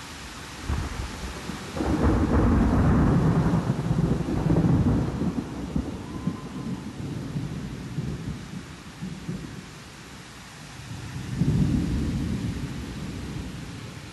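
Thunderstorm: steady rain hiss with a long roll of thunder that starts about a second in, is loudest for a few seconds and slowly dies away, then a second, shorter rumble near the end.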